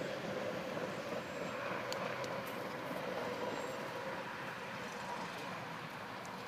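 Steady outdoor background noise with a faint hum and a few light ticks; the throw makes no distinct sound.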